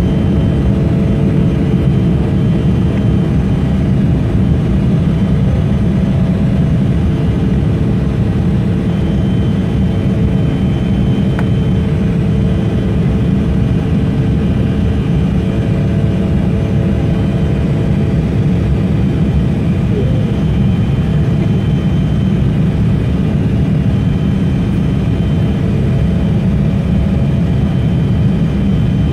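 Cabin noise of an Embraer 170 climbing just after takeoff, heard from inside over the wing. Its GE CF34-8E turbofans are at climb thrust: a loud, steady deep rumble with faint steady whining tones above it.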